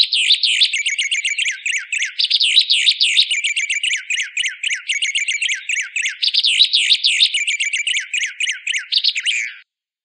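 White Singer songbird singing a fast, unbroken run of sharp chirps and quick downward-sweeping whistles, stopping abruptly about half a second before the end.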